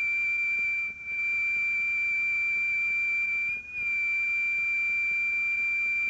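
Steady, high-pitched sine-wave test tone that accompanies SMPTE color bars. It drops out briefly twice, about one second in and again a little before four seconds.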